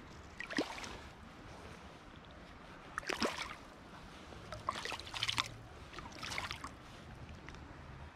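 Short splashes and sloshes of river water, several in a row, as a hooked brown trout is held and unhooked by hand at the surface.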